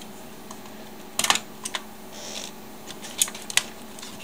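Hard plastic clicks and taps as a screwdriver works loose the handset charging-contact block in a cordless phone base station's plastic housing. There is a quick cluster of clicks about a second in, then single clicks a little later and twice near the end.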